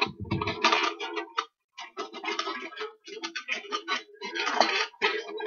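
Electric guitar strummed fast and unevenly near the bridge, in choppy stop-start strokes with a couple of short breaks.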